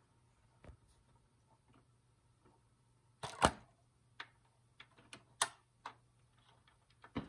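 BSR C141R record changer cycling: a run of separate mechanical clicks and clunks from the cam-driven changer mechanism, the loudest about three and a half seconds in, over a faint steady motor hum.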